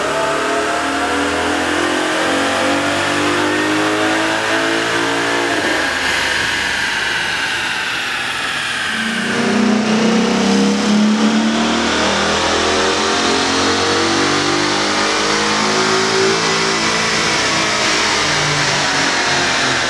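Ford Mustang GT 5.0-litre V8 running hard under load on a chassis dyno, in two runs. The first is with the stock intake. The second, starting about nine seconds in and slightly louder, is with a K&N cold air intake fitted.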